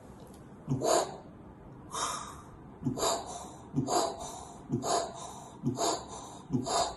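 A man imitating the heart sounds of double aortic valve disease with his voice and breath: a harsh hissing ejection systolic murmur (aortic stenosis) and a soft blowing early diastolic murmur (aortic regurgitation). The breathy sounds repeat about seven times, roughly one a second.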